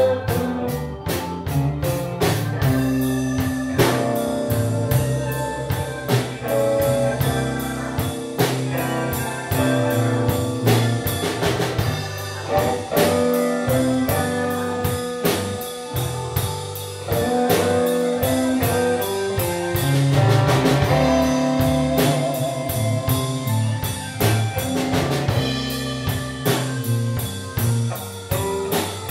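A live blues band playing an instrumental passage of a slow blues: electric guitar, organ, bass guitar and a drum kit keeping a steady beat.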